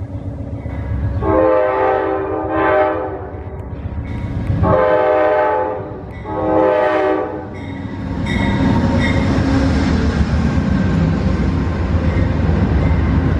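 An Amtrak P42DC diesel locomotive sounds two long horn blasts as it comes through. The rumble and wheel clatter of the locomotive and its passenger cars rolling past follow.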